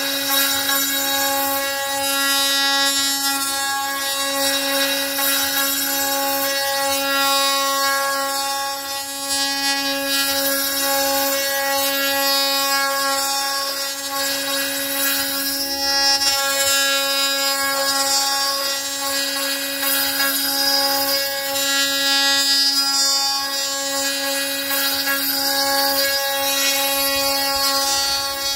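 An electric spindle motor runs at a steady, high whine while its bit mills a slot into the end of a wooden board, with the continuous hiss of the wood being cut.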